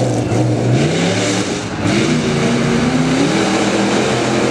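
Modified tough-truck pickup's engine revving hard under acceleration. Its pitch climbs, dips briefly, then climbs again.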